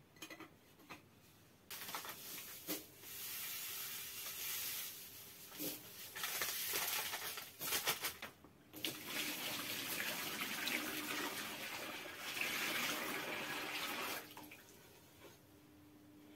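Water poured into a large metal bowl, a steady rushing pour with a short break about eight seconds in, ending about two seconds before the end, with a few clicks and knocks around it.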